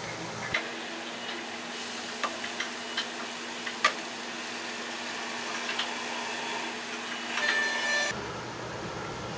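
Steady sizzling hiss of vegetables cooking in oil: diced bell pepper, onion and garlic in a nonstick pan, then eggplant slices on a griddle. A few sharp clicks and taps come through, as the slices and utensils are handled on the pan.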